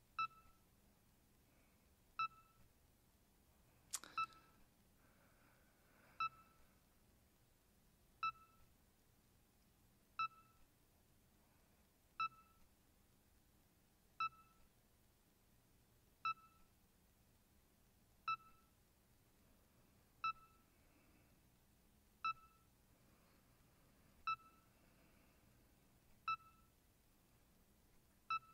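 BrailleSense 6 notetaker's progress beep, the 'heart monitor sound': a short single-pitched beep about every two seconds while a slow web search is still loading. One sharp click about four seconds in.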